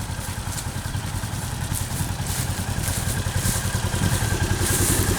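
Engine of a Polaris RZR side-by-side running steadily, getting slightly louder toward the end, with light rattling.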